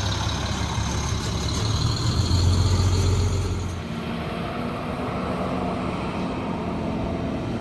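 School bus engine pulling away close by, growing louder about two to three seconds in. At about four seconds it cuts suddenly to a quieter, steady engine drone of a school bus driving off in the distance.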